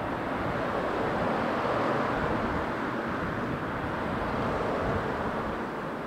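Steady outdoor rushing noise at night, even and unbroken with slow gentle swells and no distinct events.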